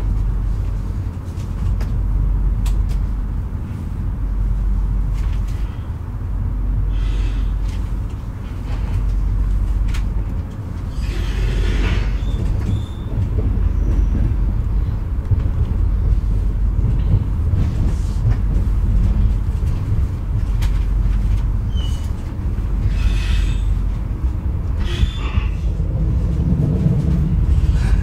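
Running noise of a Metronom double-deck passenger coach under way, heard from inside: a steady low rumble of wheels on track, with several short bursts of hiss and light clicks.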